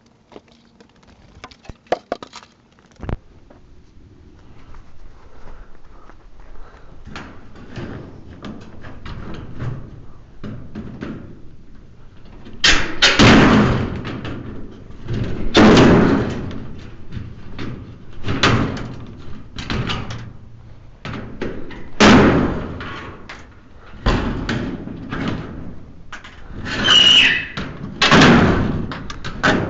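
Sheets of scrap aluminum being handled and thrown onto a pile: light clattering at first, then heavy crashes every two or three seconds from about halfway in, some of them ringing.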